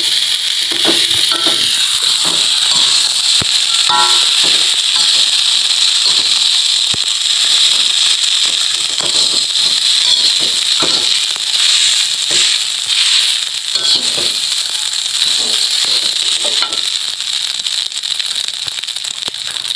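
Fried rice sizzling in a metal wok, with a steady hiss, while a metal spatula stirs and turns it, scraping and clinking against the pan many times.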